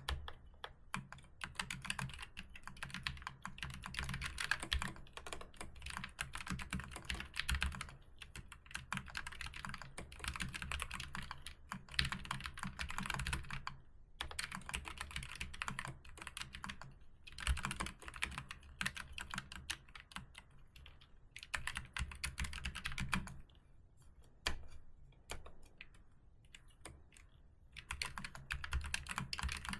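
Typing on a computer keyboard: dense runs of quick key clicks broken by short pauses, over a faint steady low hum.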